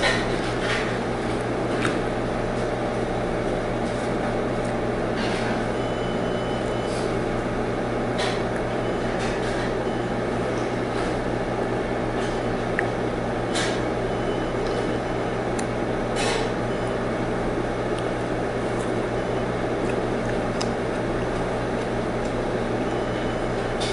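Steady mechanical hum of indoor ventilation equipment, with a handful of short, light clinks of tableware scattered through it, the first as a ladle dips into a soup bowl.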